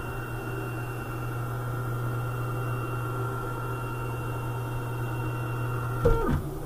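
Tormach CNC mill's Y-axis drive motor moving the table: a steady hum with a high whine. About six seconds in it stops with a sharp knock and a brief falling squeal.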